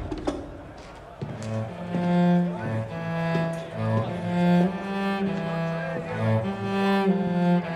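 Slow, low bowed-string music led by cello from a TV drama's soundtrack. It comes in about a second in, with sustained notes changing pitch every half second or so.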